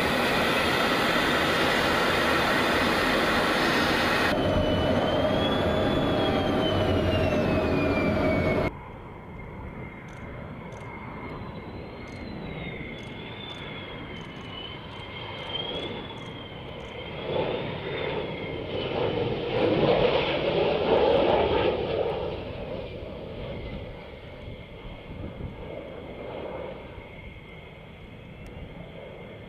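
Loud, steady jet noise heard inside a fighter's cockpit in flight; it cuts off suddenly about nine seconds in. After that comes the quieter sound of an F-16's jet engine as the fighter passes low over a runway, with a high whine wavering above it and a swell that is loudest around twenty seconds in before fading.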